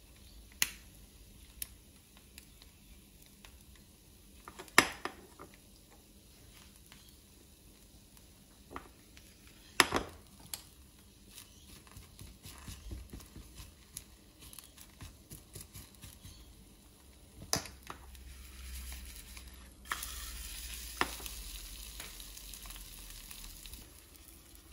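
An egg frying in a small frying pan, a faint sizzle that grows a little stronger near the end. A few sharp clicks and knocks of a utensil against the pan break in now and then.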